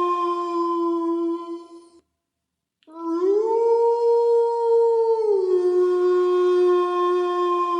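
Long, steady howls of a canine. One held howl ends about two seconds in. After a short silence a second howl starts, rises in pitch, holds, then drops back to a lower note and holds.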